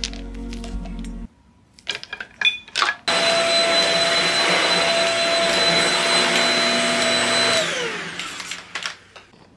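A high-speed electric motor, like that of a household appliance, runs loud and steady for about four and a half seconds, then spins down with falling pitch. A few sharp clicks come just before it starts.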